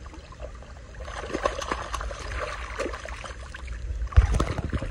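Hooked common carp splashing and thrashing in shallow water at the shoreline as it is landed, with a loud thump about four seconds in.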